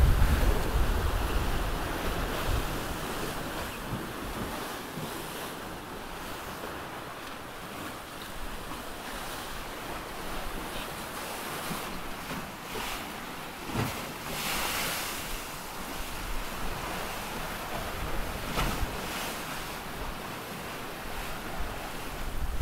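Wind and open-ocean waves rushing past a sailing trimaran, with wind buffeting the microphone. There are a few short louder surges of water in the middle.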